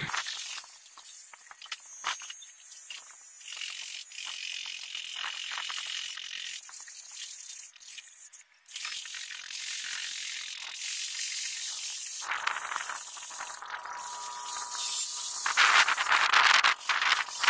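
Faint, irregular clicking and ticking, then an approaching freight train hauled by a WDG4 diesel locomotive, its sound with a steady horn-like tone building over the last five seconds and loudest near the end.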